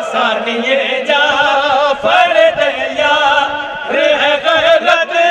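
Men's voices singing an unaccompanied Urdu devotional manqabat in praise of Abbas, held notes with wavering, ornamented pitch, amplified through handheld microphones.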